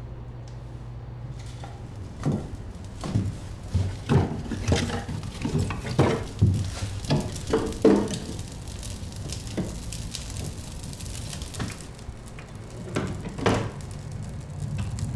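Irregular knocks and clatter, as of things being handled and set down, coming in a busy run over several seconds and again briefly near the end, over a low steady hum.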